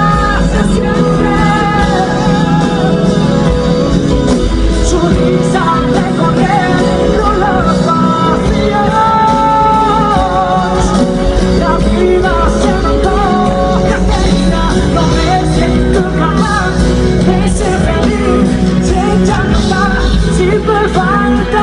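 Live pop-rock band music with a sung melody over it, loud and continuous.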